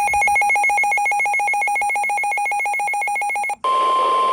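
Rapid electronic alert beeping, about ten beeps a second, cuts off abruptly about three and a half seconds in. A steady single-pitch tone starts right after: the NOAA Weather Radio 1050 Hz warning alarm tone, which signals that a warning message follows.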